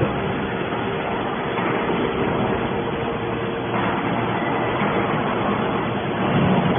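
Hydraulic scrap-metal baler running, its electric motor and hydraulic pump giving a steady mechanical hum. The noise swells slightly about one and a half seconds in and again nearer four seconds.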